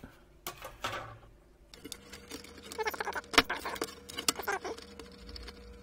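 Handling noise from the opened pulse oximeter's parts: scattered light clicks, taps and rustles, busiest in the middle. A faint steady hum comes in about two seconds in.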